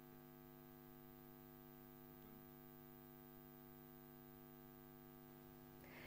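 Near silence with a faint, steady electrical hum.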